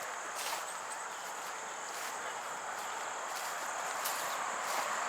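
Steady high-pitched insect trill over a faint outdoor hiss, with a few light knocks.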